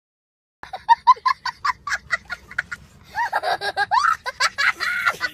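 A young child laughing hard: a quick run of short, high-pitched 'ha-ha' bursts, then longer laughs that rise and fall in pitch. The laughter starts about half a second in, after a moment of silence.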